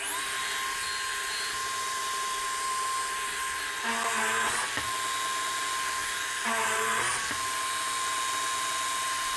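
Bosch drill press running steadily with a constant high whine. Twice, about four seconds and six and a half seconds in, the pitch dips and a rougher noise joins as the bit is fed down into the wood to bore a dowel hole.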